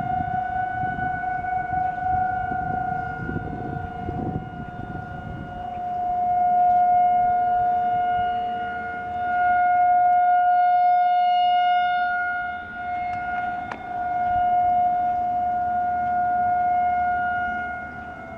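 Several outdoor tornado warning sirens sounding a steady alert tone during a monthly siren test. They hold one pitch with a weaker second tone underneath, and swell and fade about every four seconds as the rotating siren heads sweep past.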